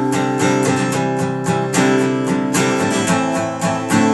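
Acoustic guitar strumming chords in a steady rhythm, an instrumental gap between sung lines of a song.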